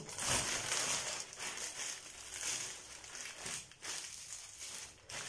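Thin plastic shower cap crinkling and rustling as it is stretched and pulled on by hand over a head wrapped in aluminium foil, in irregular handling noises.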